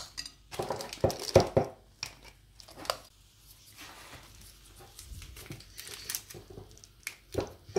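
Plastic piping bag crinkling and rustling in the hands as it is filled with whipped cream and its top is gathered and twisted. The noise comes in irregular bursts, loudest about a second in and again near the end.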